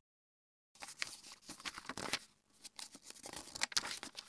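A picture-book page being turned by hand, its paper rustling with a crinkly run of small crackles that starts about a second in.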